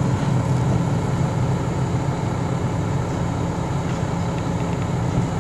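Crane engine running with a steady low drone.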